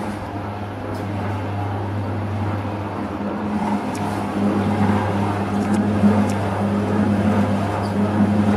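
Tea-rolling machine running, rolling fixed puerh tea leaves: a steady low motor hum under a rough, even churning noise that grows a little louder about halfway through, with a few faint clicks.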